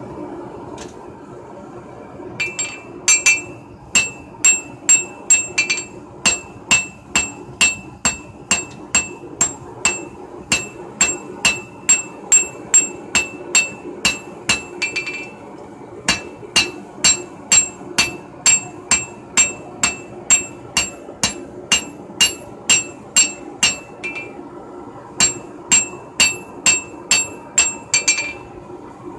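Hand hammer striking red-hot steel on an anvil, about two blows a second, each blow ringing bright; the runs of blows start a couple of seconds in and pause briefly twice, as the smith draws out the knife blank. A steady hum runs underneath.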